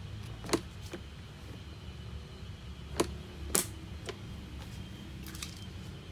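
Several short, sharp clicks and knocks at uneven intervals, the loudest about half a second in and twice around three seconds in, over a steady low hum.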